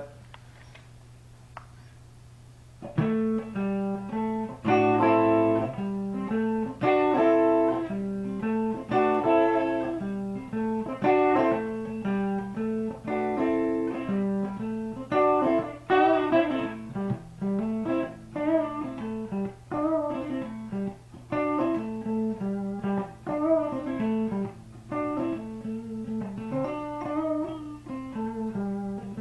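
Custom T-style electric guitar played on its neck pickup, a Lace Alumitone single coil: a run of single notes and chords begins about three seconds in. A steady low hum sits underneath throughout.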